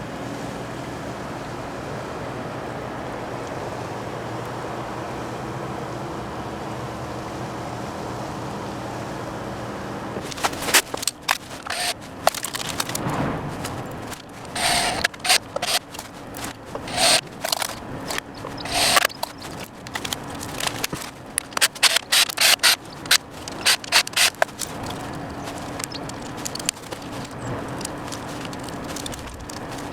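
A steady mechanical hum for about ten seconds. Then irregular clicks, knocks and scrapes of hands working with small hard parts, with the hum underneath.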